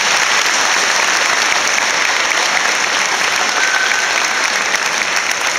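A large audience clapping steadily: sustained applause from a hall full of people.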